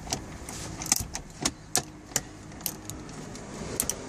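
Socket wrench with a 13 mm socket undoing a car's armrest mounting bolt: irregular, sharp metallic clicks and clinks, a dozen or so spread unevenly.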